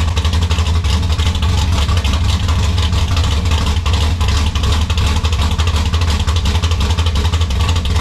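Small-block Chevy V8 running steadily through Black Widow 'Neighborhater' mufflers: a loud, rattly exhaust note close to open headers.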